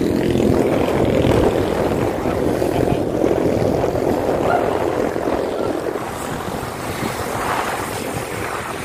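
Wind buffeting the microphone of a camera carried on a moving road bike: a steady low rush that flickers unevenly, easing a little past the middle.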